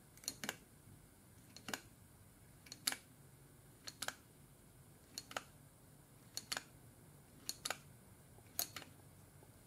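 Thumb-lever pump oil can being pumped about once a second, each stroke a pair of light clicks, nine strokes in all, squirting air tool oil into an impact wrench's oil-bath hammer housing.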